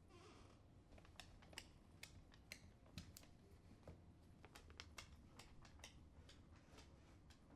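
A dog's nails clicking on a hardwood floor as it walks: a faint, irregular patter of light taps, a few a second.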